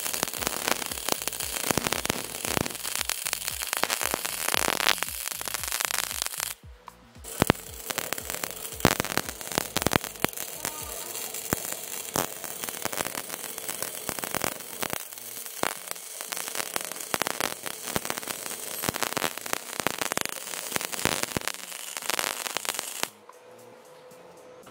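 Electric arc welding crackling and spitting as the header flange is welded, in two runs: it stops briefly about six and a half seconds in, picks up again, then stops near the end.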